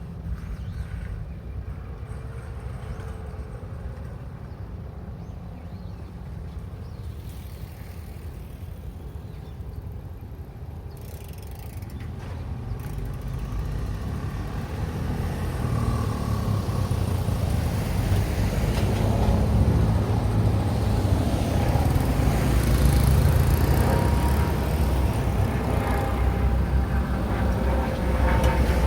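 Road traffic passing at a street junction: low engine and tyre rumble that builds up about halfway through and stays loud.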